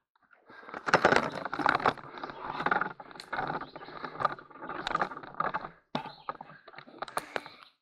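Footsteps through grass and brush, about two steps a second, with rustling and knocking close to the microphone.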